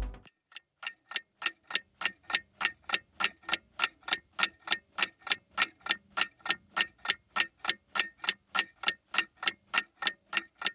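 Clock ticking fast and evenly, about four ticks a second, fading in over the first second or so.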